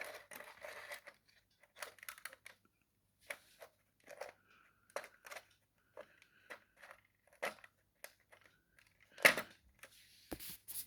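Plastic Lego pieces being handled and set in place: scattered light clicks and knocks, the loudest about nine seconds in.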